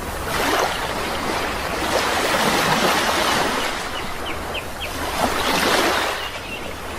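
Sea waves washing ashore in repeated surges that swell and fall back, with a few short, high bird chirps about four seconds in.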